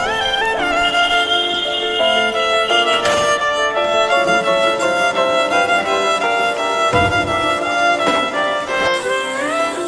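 Background music led by a violin playing a melody, with notes gliding up and down between steps.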